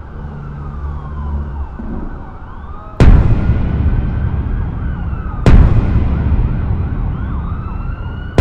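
Distant emergency sirens wailing over a low hum, cut by two deep cinematic impact hits about three and five and a half seconds in, each decaying slowly.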